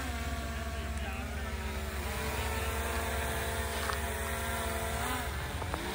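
DJI Mini 3 Pro quadcopter flying close by: a steady, many-toned propeller whine over a low rumble, its pitch dipping and wavering near the end as the drone manoeuvres.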